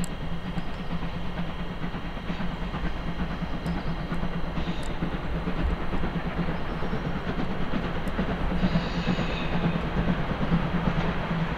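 Steam locomotive hauling passenger coaches at low speed, running steadily with steam hissing at the cylinders and a few clicks of wheels over rail joints. From about eight and a half seconds in, a high wheel squeal sets in as the train takes a curve.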